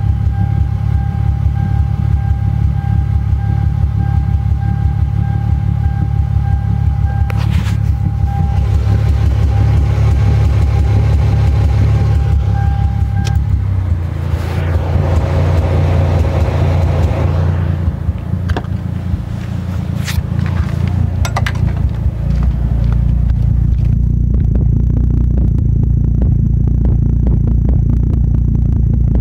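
Toyota JZX100 Chaser's 1JZ straight-six idling roughly while warm and off throttle, with occasional sharp pops: an uneven, misfire-like idle. A steady high whine runs through the first half and then stops.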